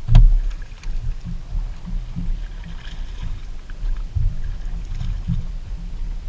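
Low, uneven rumble of wind buffeting the microphone on a boat, with a sharp thump right at the start and a few smaller knocks.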